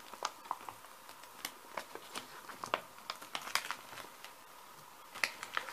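A sheet of paper handled and rubbed by hand on a paint-covered gel plate, giving off irregular crinkles and small crackles.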